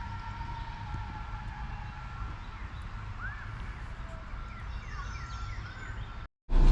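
Outdoor park ambience: a steady low rumble with a thin steady high tone fading out over the first couple of seconds, and several faint short bird chirps. The sound cuts out briefly near the end.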